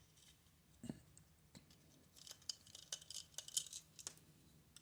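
Faint scratchy clicks and ticks of a small screwdriver with a triangle security bit working the screws of a plastic toy shell, with a duller knock about a second in and a quick run of clicks in the middle.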